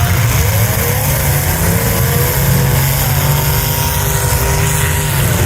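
Demolition derby cars' engines running loudly, with engine notes revving up in pitch over a steady low drone.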